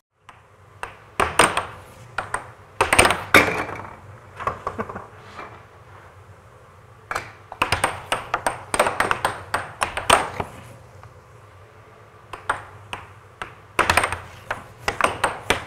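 Air hockey puck clacking sharply off mallets and the table's rails in three quick rallies with short lulls between, over the steady low hum of the table's air blower.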